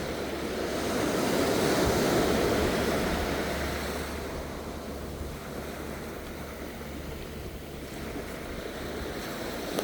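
Waves washing up the beach: a surge of surf noise that swells about two seconds in and slowly dies away, with another starting to build near the end, over low rumble of wind on the microphone.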